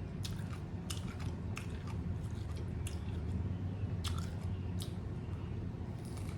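A person chewing a taco with the mouth close to the microphone: irregular wet smacks and clicks, over a low steady hum.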